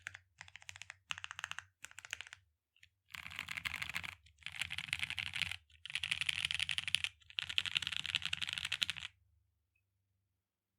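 Typing on an Aksara 60 mechanical keyboard with lubed and filmed Milkytop Creamsicles switches, a polypropylene plate and GMK keycaps. Short runs of rapid key clicks come first, then four longer, denser bursts of fast typing, and the typing stops about nine seconds in.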